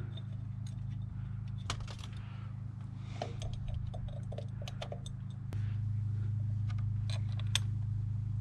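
Light metallic clicks and clinks of small parts and bolts being handled while a new thermostat, gasket and housing are fitted to the engine, over a steady low hum that gets louder about halfway through.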